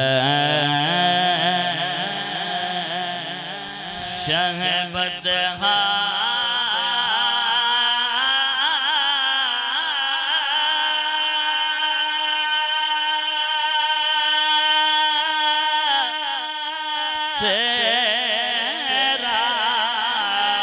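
A solo male voice singing a devotional naat into a microphone, drawing out long melismatic notes with a wavering vibrato. He holds one note for several seconds in the middle, with short breaths in between.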